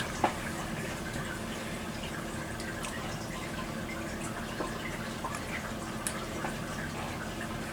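Quiet room tone: a steady faint hiss and low hum with a few scattered faint ticks and one sharper click about a quarter second in. The flashing LED strobe is silent, with no capacitor buzz, squeal or high-pitched whine.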